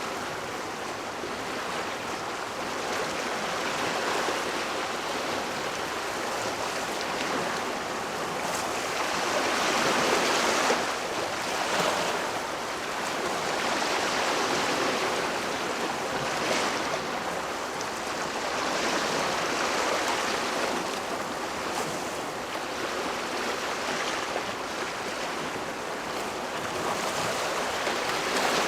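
Water washing in waves: a steady rushing noise that swells and eases every few seconds.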